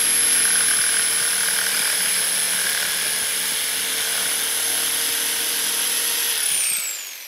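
Electric jigsaw cutting into the edge of plywood, its motor giving a steady high whine over the rasp of the blade. About six seconds in the trigger is released and the motor winds down, its pitch falling until it stops.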